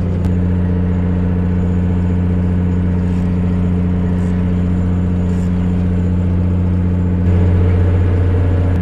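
Fishing boat's engine running steadily, a low even hum; it gets slightly louder about seven seconds in.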